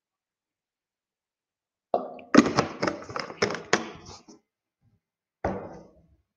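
A quick run of keystrokes on a computer keyboard about two seconds in, then a single further key clack near the end.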